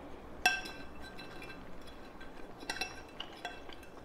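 Metal fork clinking against a ceramic pasta bowl as spaghetti is twirled: one sharp ringing clink about half a second in, then several lighter clinks in the second half.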